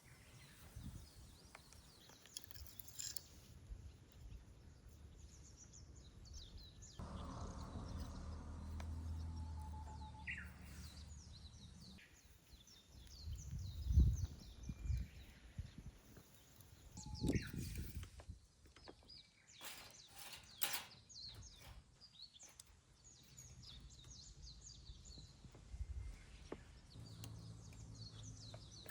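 Wood fire crackling in a stainless-steel fire pit, with scattered sharp snaps, and birds chirping. A low hum sounds for a few seconds near the first third, and a single loud thump comes near the middle.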